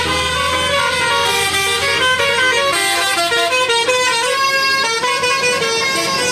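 Telolet basuri multi-tone musical horn on a large vehicle playing a quick tune of short notes that step up and down in pitch.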